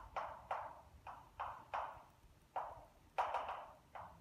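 Chalk writing on a blackboard: a string of short, sharp chalk strokes and taps, about eight in four seconds, irregularly spaced.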